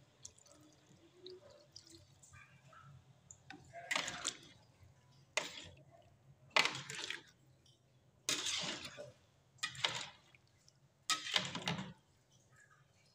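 A metal spoon stirring and scooping coconut-milk vegetable soup (sayur lodeh) in a metal wok, the liquid sloshing and splashing in about six short bursts in the second half.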